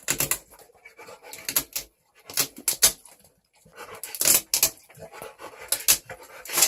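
A frightened dog scrambling about: a run of short, irregular scratching and clicking noises. The dog is panicking in fear of a noise.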